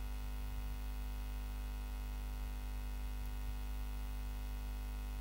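Steady electrical mains hum: a low buzz with a stack of even, unchanging tones above it.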